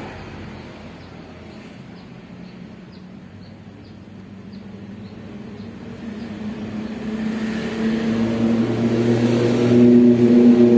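Suzuki GT750's water-cooled two-stroke triple engine running: the revs sink low, then climb again in the second half to a louder, steady note.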